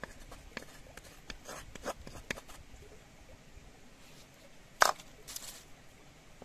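Light clicks and taps of a coconut-shell bowl and wooden spoon on a serving bowl as spice paste is scraped into minced chicken, with one sharper knock a little under five seconds in, followed by a short rustle.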